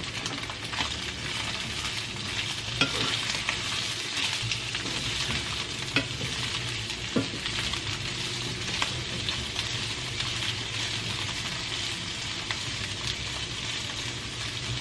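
Tofu cubes, onion and red bell pepper sizzling steadily in a hot frying pan, stirred with a wooden spatula that taps and scrapes against the pan a few times.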